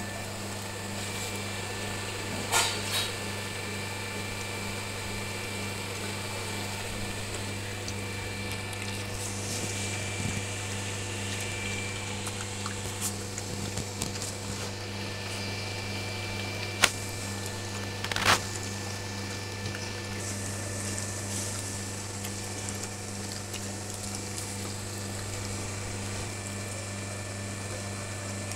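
Dogs eating rice from plastic bowls, with a few sharp knocks, once early and twice around the middle, over a steady low mechanical hum.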